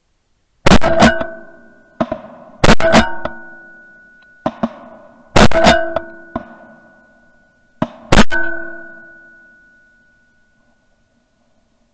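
A rapid series of shotgun shots at flying ducks, each a loud sharp crack followed by a short metallic ring. The loudest come every two to three seconds, several with a second crack close behind, and there are fainter cracks in between.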